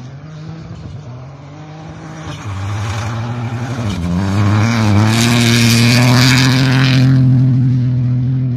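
Rally car engine at high revs on a gravel stage. The revs dip about four seconds in as it takes the bend, then climb and hold as it accelerates past. A loud rushing hiss of tyres and gravel comes as it passes closest.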